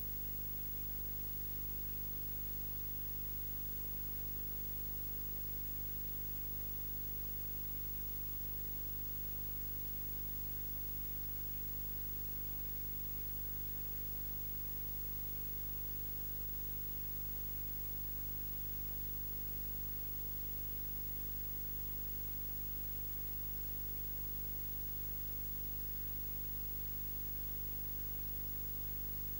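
Steady electrical hum with many overtones under a constant hiss, unchanging throughout. It is the noise of an unplugged microphone input: no room sound was recorded.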